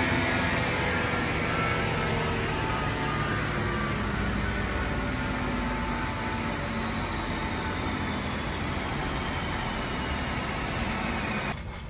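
BMW 640i's drivetrain and Dynojet chassis-dyno roller spinning down after a full-throttle pull: a whine that falls slowly in pitch over a steady rushing noise, easing off gradually and cutting off near the end.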